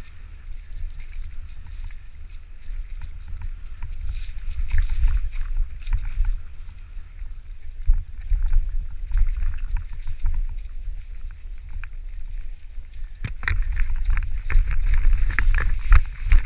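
Wind buffeting the microphone over the clatter and rattle of a mountain bike rolling down a rough trail. The rattling grows busiest in the last few seconds.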